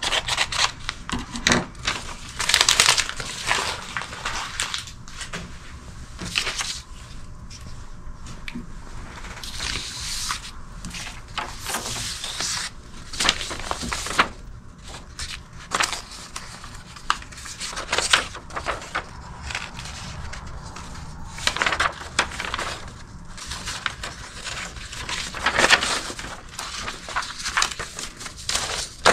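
Irregular crackling and crinkling: many sharp clicks and short rustling bursts that go on without a break, with a few louder snaps among them.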